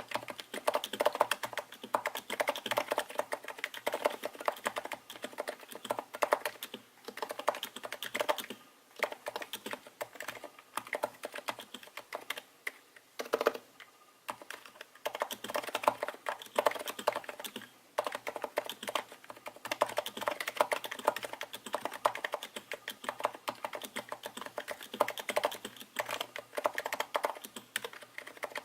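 Typing on a Royal Kludge RC930-87 capacitive (Topre-style) keyboard fitted with HHKB rubber domes: a fast stream of keystrokes in runs, broken by short pauses.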